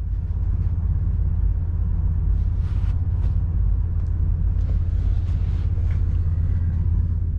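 Class 221 Super Voyager's underfloor diesel engine idling with the train standing, a steady low rumble heard inside the passenger saloon.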